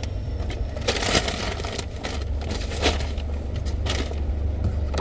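Paper takeout bag rustling and crinkling in several short bursts as it is handled, over the low steady hum of the idling car.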